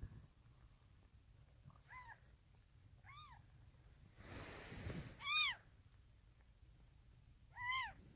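Newborn kitten crying in thin, high mews: four short calls that rise and fall in pitch, the third the loudest. A brief rustle comes just before the loudest cry.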